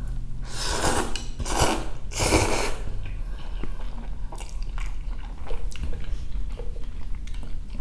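Three long slurps of broth-soaked birria ramen noodles in the first three seconds, then close-miked chewing with small wet mouth clicks.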